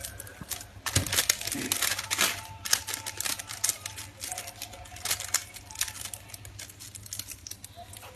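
Plastic shrink film crinkling and crackling as hands fold and press it around a cardboard box, a quick irregular run of crackles starting about a second in.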